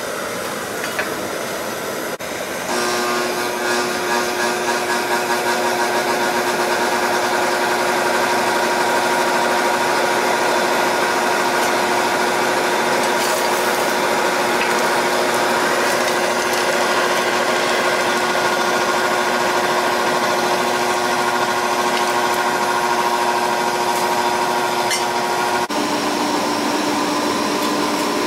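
An electric motor running steadily in a metalworking shop, a constant hum with a whine above it; the pitch shifts slightly about three quarters of the way through, where the sound changes abruptly.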